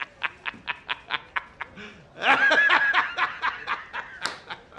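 A man laughing heartily in rapid, rhythmic 'ha-ha' pulses, about five a second, with a louder, higher-pitched burst of laughter about two seconds in before the pulses trail off.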